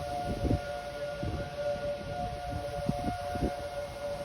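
Outdoor tornado warning siren sounding a steady held tone, its upper note fading briefly and returning partway through, over a low gusty rumble.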